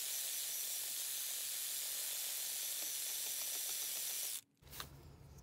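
Cordless drill with a masonry bit running steadily as it grinds into a stucco-finished concrete block wall, enlarging a hole so a wall anchor will fit. A hiss of grinding with a faint high whine, which stops abruptly about four and a half seconds in.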